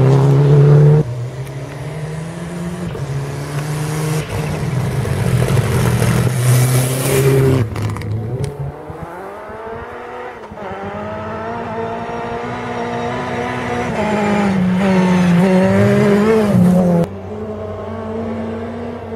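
Rally cars at full attack on a gravel stage, among them a Mitsubishi Lancer Evolution, engines revving hard and dropping back through gear changes as they pass. The sound changes abruptly three times as one car's run gives way to the next.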